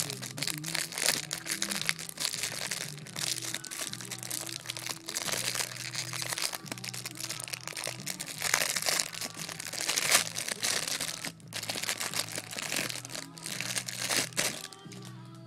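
Packaging being unwrapped and handled, with a dense, irregular run of crinkling and crackling that stops near the end.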